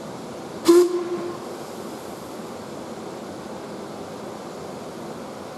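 A narrow-gauge steam locomotive's whistle gives one short, sharp toot about a second in, over a steady background hiss.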